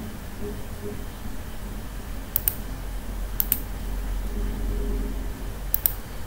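Computer mouse clicking three times, each click a sharp double tick of button press and release, a second or two apart, over a steady low electrical hum.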